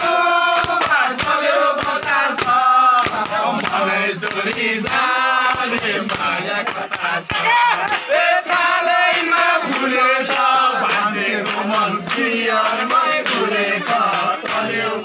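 A group of men singing a Nepali folk song together, loud and unaccompanied by instruments other than regular struck beats.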